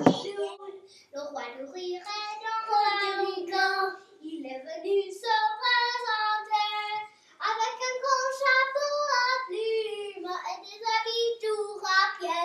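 A young girl singing a song unaccompanied, in phrases with short breaks between them.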